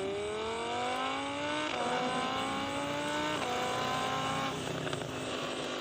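Vehicle engine accelerating up through the gears: the pitch rises, drops back at two gear changes, climbs again and then holds steady before cutting off.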